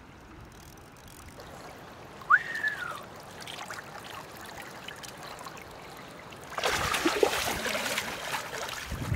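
Shallow river water running and trickling, then a louder stretch of splashing from about two-thirds of the way through as a chinook salmon is released and thrashes off in the shallows. A short high chirp sounds once about two seconds in.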